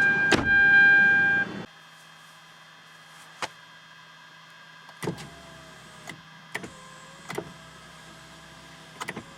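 A steady electronic chime-like tone with a knock about half a second in, then the tone and background noise cut off suddenly just under two seconds in, as when a car door shuts. After that, a quiet car interior with a few scattered sharp clicks.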